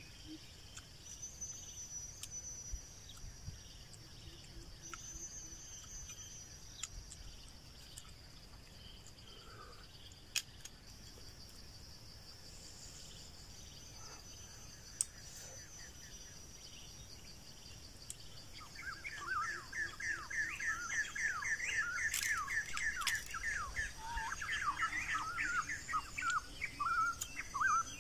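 Forest birds chirping over a steady high-pitched insect drone. About two-thirds of the way through, a bird breaks into a louder run of rapid chattering calls. Two sharp clicks sound in between.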